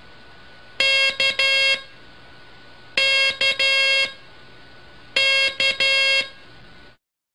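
Morse code tone keyed dah-dit-dah, the letter K, three times about two seconds apart, as a buzzy mid-pitched beep over a steady hiss. The hiss cuts off near the end.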